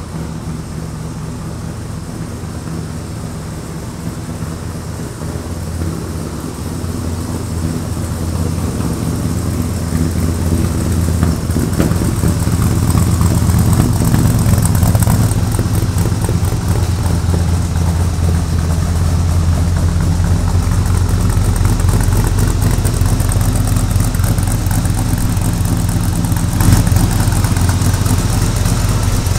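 1957 Chevrolet Suburban panel truck's freshly built 350 small-block V8 running steadily, getting louder over the first dozen seconds, with one short louder moment near the end.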